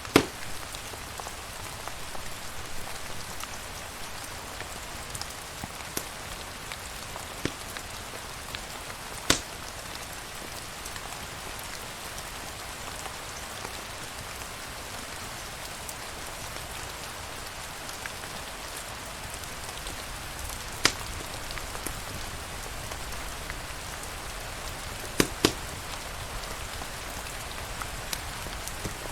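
Steady rain falling, an even hiss of drops, with a few sharp pops standing out: one right at the start, one about nine seconds in, one around twenty-one seconds, and two close together near twenty-five seconds.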